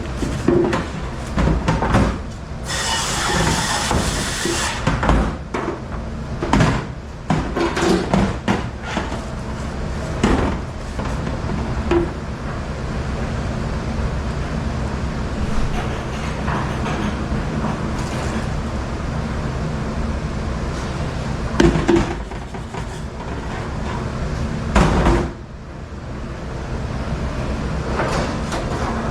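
Steady low machine hum with repeated clattering knocks, like dishes and trays being handled, and a loud hissing rush for about two seconds near the start, typical of a spray rinse.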